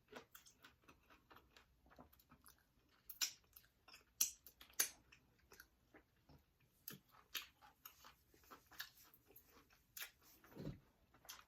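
Quiet eating sounds of a person chewing spicy seafood boil, with irregular wet smacks and clicks of the mouth.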